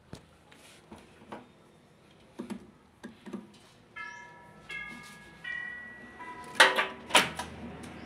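Scattered clicks and knocks of a hand working on the wiring connectors and motor inside an opened heat pump dryer, with two loud knocks near the end. From about halfway, a series of held tones comes in, one after another, each on a different pitch.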